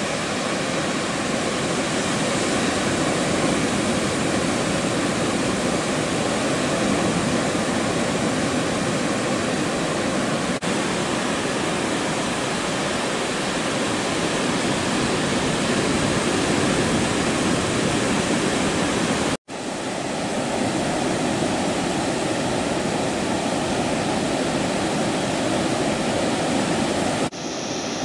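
Breaking ocean surf and whitewater washing in: a steady, even rushing noise, cut off for an instant about two-thirds of the way through.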